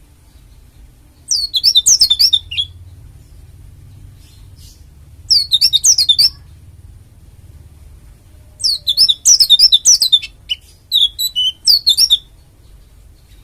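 Pleci dakun bali (a white-eye) singing in four bursts of rapid, high-pitched twittering, each a quick run of sharply falling notes, with short pauses between the bursts.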